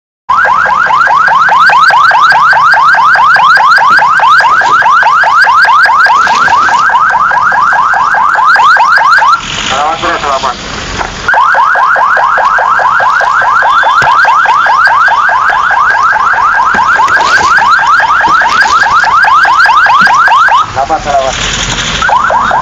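Ambulance electronic siren sounding close by in a rapid yelp, a fast string of short rising whoops. It twice switches for a second or two to a slower wavering tone before going back to the yelp.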